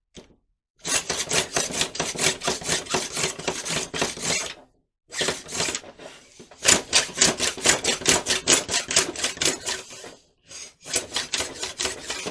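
Quick back-and-forth rasping strokes of hand work on a glued rod, removing excess glue and smoothing the surface, in three bursts of several seconds each.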